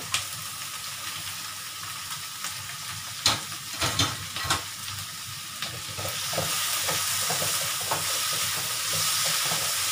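Chopped capsicum and mixed vegetables sizzling in hot oil in a wok while a wooden spatula stirs them, with a few sharp knocks of the spatula against the wok about three to four and a half seconds in. The sizzling grows louder in the second half.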